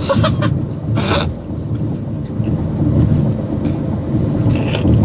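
Road and engine noise inside a car cabin at motorway speed: a steady low rumble from the tyres on a worn, patched road surface. Short sharper noises come about a second in and near the end.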